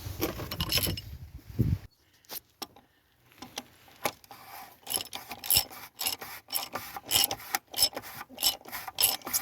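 Socket ratchet clicking in quick repeated strokes as the oil filter housing cap is tightened, after a couple of seconds of handling noise at the start.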